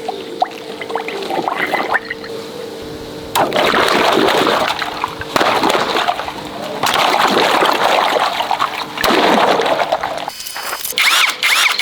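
Water splashing and gushing in four long rushes of a second or two each, after a few seconds of small clicks, over a steady hum.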